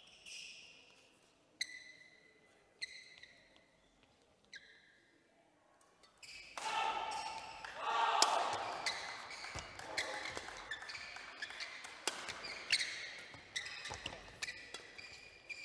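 Badminton doubles rally: rackets hitting the shuttlecock in quick exchanges and court shoes squeaking on the court floor, starting about six seconds in. Before it, a few single shoe squeaks while the players get ready to serve.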